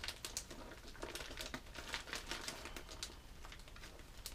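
Zip-top plastic bag of soft plastic lures being pinched shut along its zipper seal: a run of small clicks with plastic crinkling, the seal slow to take.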